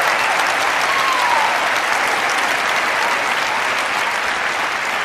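Audience applauding steadily, the applause slowly dying down toward the end.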